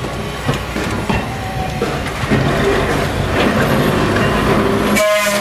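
Pacific Electric red car 418 rolling past at close range: a steady rumble of steel wheels on the rails with clicks over the rail joints, and a short high tone near the end.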